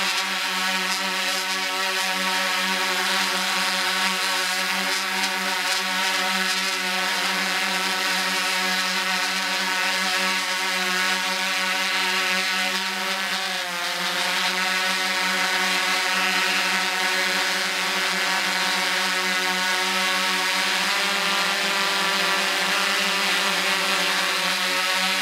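Quadcopter drone's electric motors and propellers whining steadily, a high multi-tone drone that dips briefly in pitch about halfway through as the craft changes speed.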